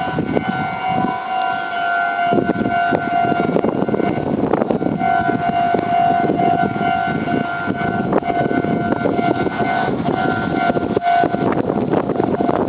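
Japanese railway level-crossing warning bell ringing its steady electronic tone. From about two seconds in, a train rumbles over the crossing with repeated wheel clicks over the rail joints.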